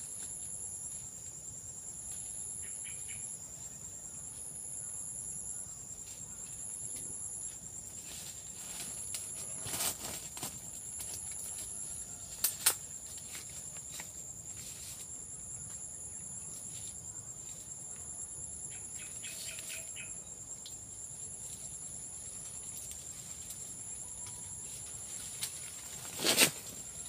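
Insect chorus shrilling: a steady high-pitched whine, with a second, higher one pulsing on and off about once a second. A few short sharp snaps or knocks break in, the loudest near the end.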